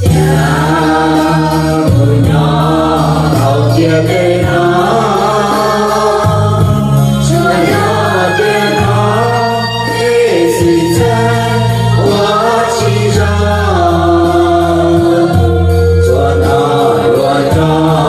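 Music: a group of voices singing together over instrumental backing, with held bass notes that change every second or two.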